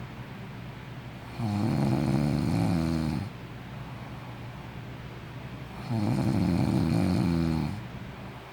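A sleeping person snoring: two long snores, each lasting about two seconds and about four and a half seconds apart, with quieter breathing between them.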